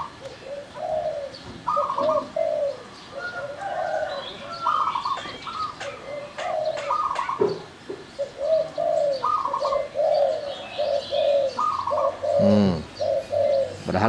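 Caged doves, a spotted dove among them, cooing over and over in short repeated phrases, with a higher coo answering now and then. Small birds chirp thinly above them.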